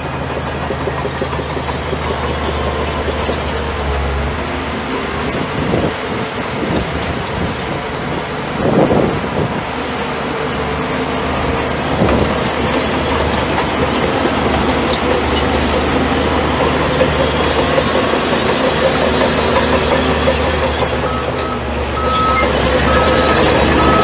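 Shantui bulldozer's diesel engine running steadily under load, with several louder knocks and clatter as it works. The engine picks up near the end, when a repeated beeping tone starts.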